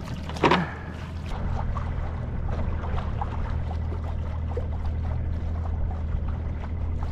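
Small boat's outboard motor running steadily at idle, with water noise over it. A short loud splash about half a second in as a cast net is thrown over the side.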